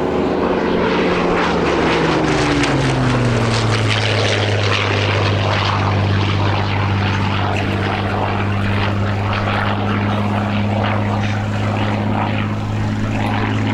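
Hawker Hurricane Mk.I's Rolls-Royce Merlin V12 engine and propeller as the aircraft flies past: the engine note drops in pitch about two seconds in, then holds steady and loud.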